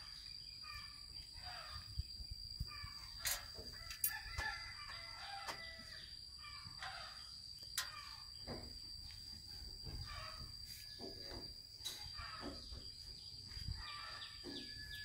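Chickens clucking, with a rooster crowing, over a steady high-pitched whine and a few faint clicks.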